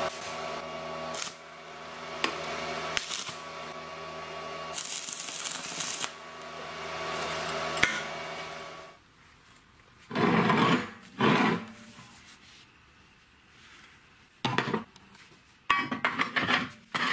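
Electric arc welding on steel: a steady hum with crackling hiss for about nine seconds, then the arc stops. After that, steel pieces clank and scrape against the metal bench in a few short, loud bursts.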